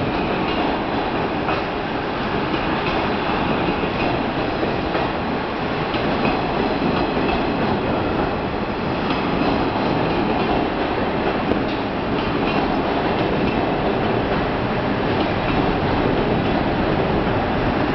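Blue 24-series sleeper coaches rolling slowly past a platform, pushed from behind by their locomotive in a propelling move: a steady rumble of wheels and running gear on the rails.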